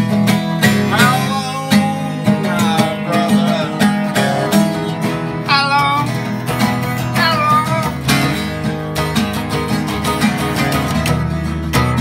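Acoustic flattop guitars strummed and picked with a flat pick, playing a country-style tune. Wavering, wordless howling voices rise over the guitars several times.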